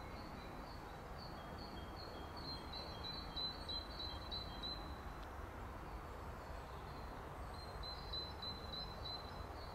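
A small bird singing quick runs of short, high repeated notes, a second run starting near the end, over faint steady background noise.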